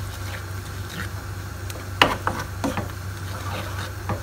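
Wooden spatula stirring a thick tomato and onion sauce in a non-stick frying pan, with irregular scrapes and light clicks against the pan and one sharper knock about two seconds in, over a steady low hum.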